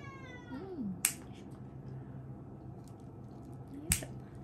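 Two sharp snips of pet nail clippers cutting a cat's thick claws, one about a second in and one near the end. A cat's meow trails off at the very start.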